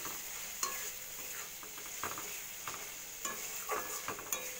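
Metal spatula scraping and stirring chopped tomato into onion paste frying in oil in a metal wok (kadai), about six strokes over a steady sizzle.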